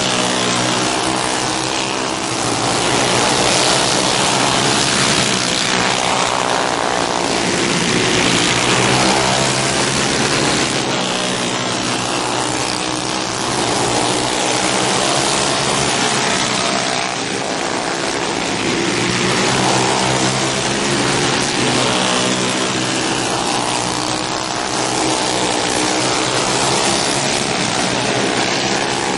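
Several alcohol-burning dirt-track racing go-kart engines running hard at high revs. The pitch rises and falls in waves every few seconds as the karts accelerate out of the corners and pass.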